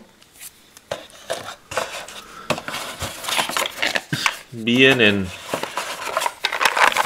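Small cardboard boxes and cellophane-wrapped game pieces being handled in a board-game box: irregular clicks, knocks and rustling as they are lifted from the box insert.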